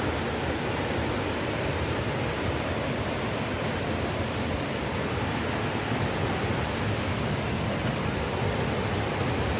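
A waterfall rushing steadily: an even, unbroken wash of water noise.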